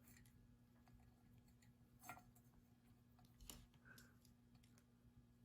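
Near silence: a low steady hum with a few faint clicks from handling small crimp-on wire connectors, the clearest about two seconds in and again a second and a half later.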